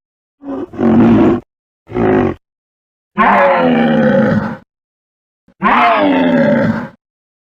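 Ankylosaurus creature sound effects: four separate deep, pitched calls with dead silence between them. The first two are short, and the last two are longer, at about a second and a half each, falling slightly in pitch.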